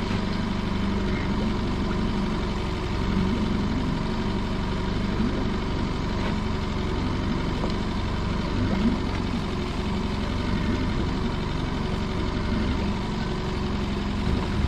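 Motor running steadily as the dinghy's winch hauls a lobster pot up on its rope, with a faint constant whine over a low hum.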